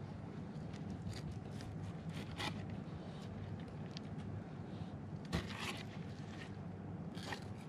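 Filleting knife cutting a Spanish mackerel fillet away from the backbone and rib bones, with a few faint scrapes and clicks of the blade against bone over a low steady hum.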